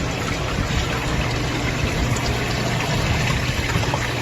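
Steady low motor hum with an even rushing noise over it: running machinery, with no change in pace or pitch.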